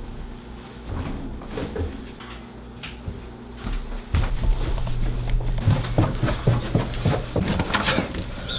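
Knocks, bumps and handling noises of someone moving about a room and opening doors. A low steady hum comes in about four seconds in and the sound gets louder.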